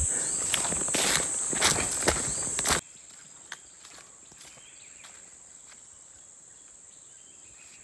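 Footsteps pushing through dense undergrowth, with leaves and twigs crackling and snapping over a steady high insect whine; the sound cuts off abruptly about three seconds in. After that it is quiet forest ambience: the insect whine carries on faintly, with a few small ticks.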